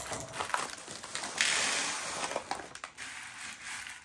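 Frozen mixed vegetables (peas, corn, carrots, green beans) tipped from a plastic bag into a glass baking dish. Scattered clicks come first, then a dense rattling rush as the pieces pour out about a second and a half in, then quieter crackling as the pieces settle and are spread by hand.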